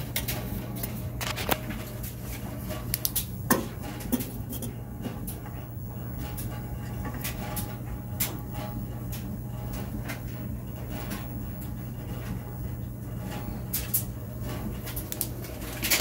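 Scattered metallic clinks and knocks as the steel burners of a gas furnace's burner assembly are handled and taken out, over a steady low hum.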